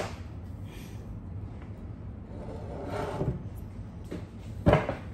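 Close mouth noises of a person chewing a mouthful of ripe banana, with a muffled sound about three seconds in and a short, sharp noise near the end, over a low steady hum.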